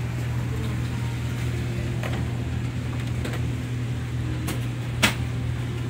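Steady low hum of supermarket refrigerated display cases, with faint voices in the background and one sharp click about five seconds in.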